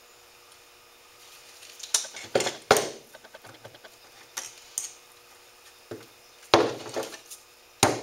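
Hammer tapping nails through a beaver hide into a wooden board: a series of irregular sharp taps, starting about two seconds in.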